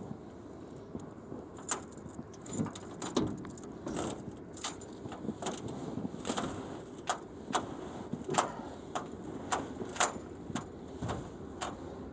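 Snow crunching in a string of short, sharp crunches, roughly two a second.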